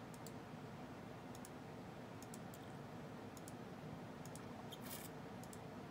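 Computer mouse button clicked over and over, each click a quick press-and-release pair, about once a second, with a brief rustle just before five seconds in.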